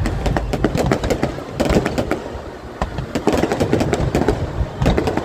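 Fireworks popping and crackling in quick irregular strings, over a low rumble and crowd voices.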